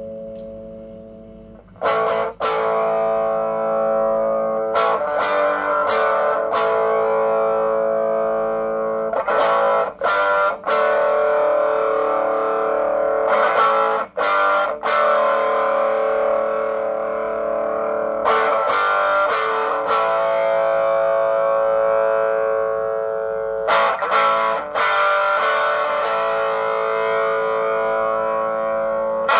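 Electric guitar played through a Joyo British Sound pedal into a small Marshall amp: chords strummed in pairs every four or five seconds, each left to ring out and fade before the next.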